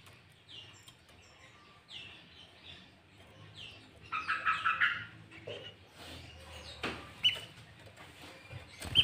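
Sooty-headed bulbul (kutilang) singing: faint short falling notes repeated every half second or so, then about four seconds in a loud second-long burst of rapid chattering notes, followed by a few sharp single whistled notes near the end.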